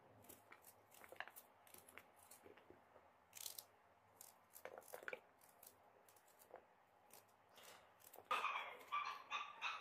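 Small kitchen knife cutting through red onion held in the hand, a scattered series of light crisp cuts and crunches as the pieces drop onto a plate. Near the end, a louder pitched sound lasting about a second and a half.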